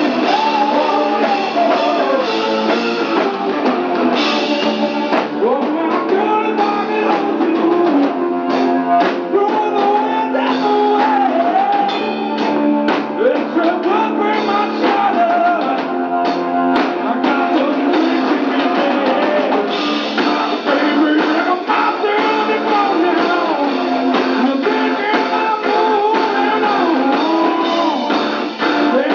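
Live hard rock band playing loudly, with singing over distorted electric guitar and a drum kit, recorded from the audience with the low bass thinned out.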